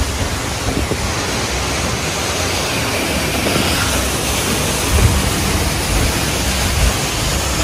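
Steady rushing noise, with low thuds about five and seven seconds in.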